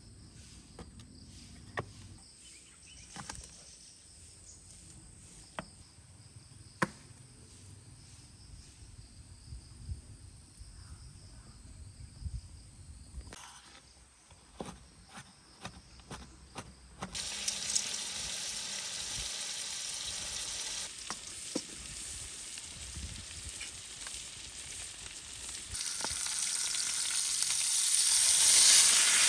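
Insects chirring steadily, with scattered small clicks. A bit over halfway in, a loud, steady hiss cuts in suddenly and grows louder near the end.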